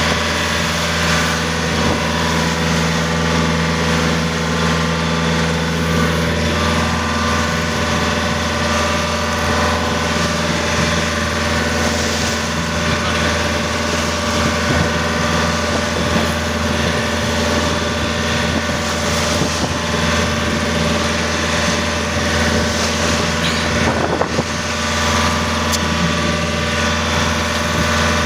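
Inboard engine of a tour boat running at a steady speed, a constant low drone with steady tones that barely change; one of the tones drops out about seven seconds in.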